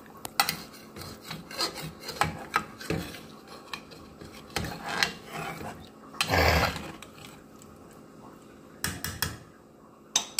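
Steel ladle stirring and scraping inside an aluminium pressure cooker full of vegetable curry with water just added, in a run of short strokes with one louder stroke about two-thirds of the way through, then a few light clicks near the end.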